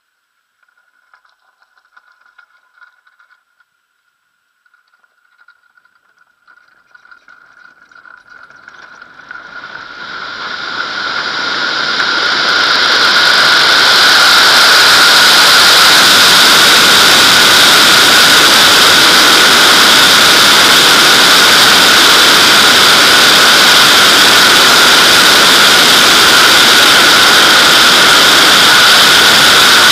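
Airflow rushing over a camera mounted on a Nimbus-2 glider's fuselage during a winch launch. After a faint thin tone, the rush swells from about a third of the way in as the glider speeds up, then holds as a loud, steady hiss with a whistling tone in it.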